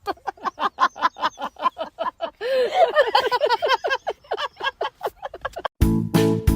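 An animal calling in a rapid run of short pitched yaps or squawks, about five a second. Keyboard music starts near the end.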